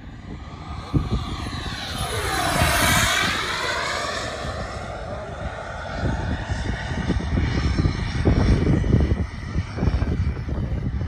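Xicoy turbine of a CARF Rebel model jet making a low pass, its jet noise swelling to its loudest about three seconds in with a whooshing sweep that falls and rises again as it goes by. The turbine rumble continues and swells again near the end.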